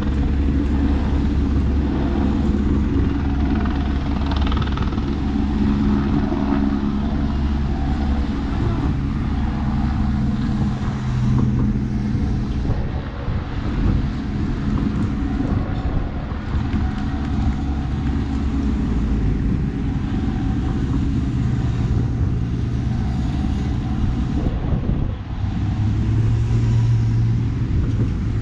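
A steady stream of cycling-race team cars and motorcycles driving past one after another, their engines and tyres running without a break.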